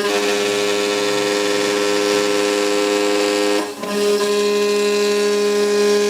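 CNC router spindle running with a steady whine, milling an aluminium window-frame profile. About four seconds in the sound dips briefly and the whine settles at a different pitch.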